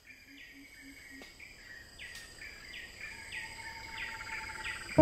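Short falling chirps repeat about twice a second over a faint low hum, fading in and getting louder throughout. A few soft low beeps sound in the first second, and a thin steady tone joins from about three seconds in.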